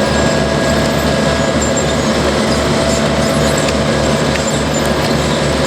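Diesel engine of asphalt paving machinery running steadily with a rhythmic low throb, with small high-pitched squeaks over it.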